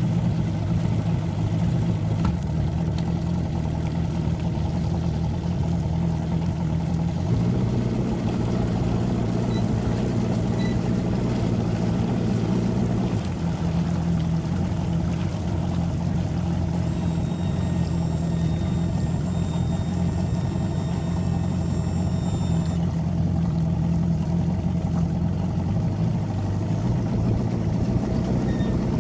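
Evinrude outboard motor running steadily at low speed, its note stepping up for about six seconds a quarter of the way in. A rattle comes in near the end, which the owner traced to a missing bushing on the shift lever.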